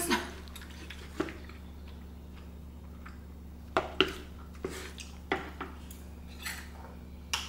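Wooden ladle stirring thick spicy rice cakes in an electric cooking pot, with scattered knocks and clicks as it bumps the pot, several close together midway. A steady low hum runs underneath.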